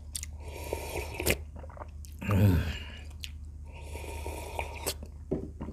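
A man slurping broth from a glass bowl held to his lips, heard close up: two long noisy sips with a short, louder voiced sound between them about two and a half seconds in, and a few small mouth clicks near the end.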